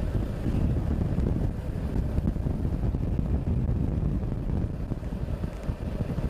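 Vehicle moving along a forest road: a steady low rumble of engine and road noise, with wind buffeting the microphone.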